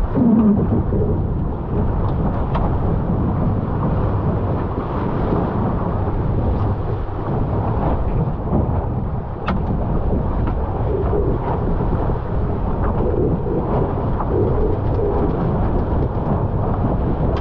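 Steady wind rumble buffeting an onboard camera's microphone, over water rushing along the hull of a GP14 sailing dinghy under way.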